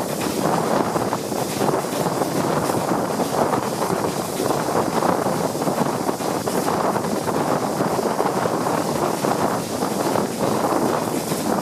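Wind rushing over the microphone held out of the window of a moving steam-hauled train, mixed with the train's running noise.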